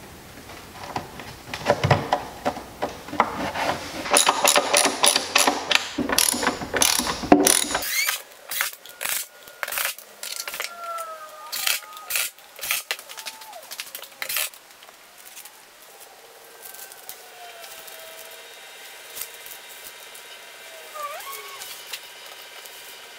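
Hand ratchet wrench clicking in quick runs for the first several seconds, likely tightening the fasteners that hold the cargo box to the ATV's rear rack. Then come scattered sharp clicks and knocks, and later faint gliding tones under quiet handling.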